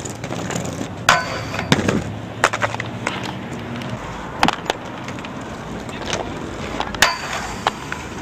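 Aggressive inline skate wheels rolling over pavement, with repeated sharp clacks and knocks as the skates land and strike obstacles; a couple of the hits ring briefly.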